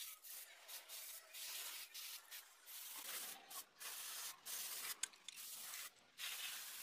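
Short, faint bursts of metal rubbing and scraping as a feeler gauge is slid between the rocker arms and valve stems of a six-cylinder Nissan diesel engine with the engine stopped, while the valve clearances are set.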